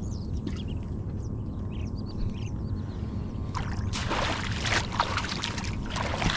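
Water splashing and sloshing as fish traps are handled from a small boat in shallow water. A run of splashes comes from about three and a half seconds in until near the end, over a low steady rumble.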